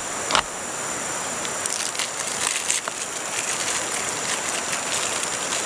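A thin plastic food tray is set down into a plastic heating tray with a click, then light crackling as it is settled in place, over a steady high hiss.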